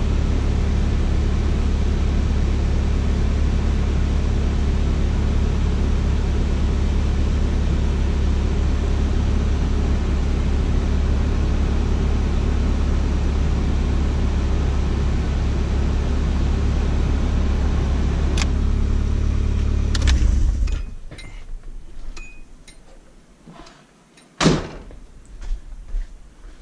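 Nissan 240SX's KA24DE inline-four engine idling steadily while the cooling system is bled of air after a coolant flush, then switched off about twenty seconds in. After it stops come a few light clicks and one loud knock.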